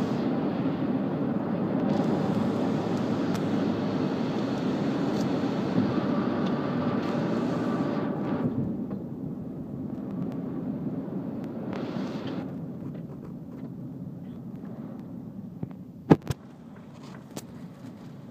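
Road noise inside a moving car on wet pavement: a steady tyre hiss and rumble that eases off about halfway through as the car slows, with a single sharp knock near the end.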